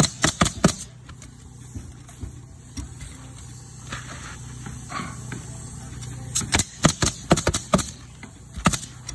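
Pneumatic coil roofing nailer driving nails into asphalt shingles in quick runs of sharp shots: about four at the start, a run of about seven near the end and two more just after. In the quieter middle, shingles are handled while the nailer is set down.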